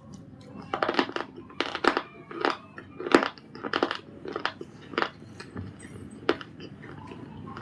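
'Punjab biscuit' pieces coated in white khadi paste crunching: a quick run of sharp, crisp crunches starting about a second in, thinning to a few single crunches after about four seconds.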